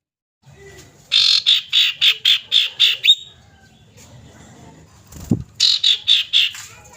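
Common iora (cipoh) giving a rapid series of sharp, harsh call notes, about four a second, in two runs separated by a pause. A low thump comes just before the second run.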